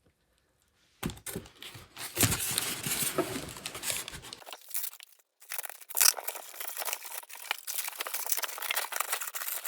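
Packaging around a replacement fireplace glass being torn and crumpled: irregular crackling and rustling with a few sharper snaps, starting about a second in and pausing briefly about five seconds in.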